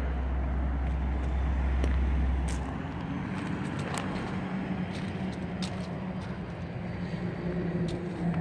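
Steady low vehicle engine hum that drops away sharply about two and a half seconds in, leaving a fainter steady hum, with light footsteps crunching on gravel.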